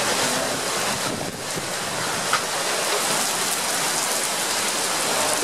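Heavy thunderstorm downpour: a steady hiss of rain pelting pavement and standing water, dipping briefly about a second in.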